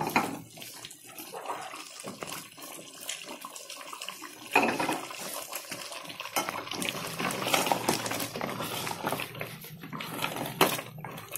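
A wooden spoon stirring thick, liquid curry in an aluminium pot: irregular wet stirring with scrapes and knocks of the spoon against the pot, two of them louder, about four and a half seconds in and near the end.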